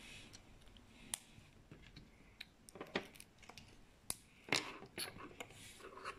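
Small LaQ plastic pieces being fitted and snapped together by hand: a handful of light, separate clicks and taps.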